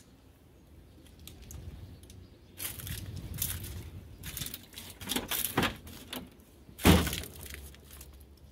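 Scuffing and handling noises, then the driver's door of an old GM Caravan being unlatched and swung open: several sharp clacks and a loud clunk about seven seconds in.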